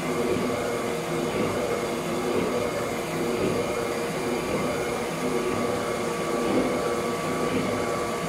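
Kasto PSB 4 power hacksaw running, its electric motor giving a steady mechanical hum with a held tone.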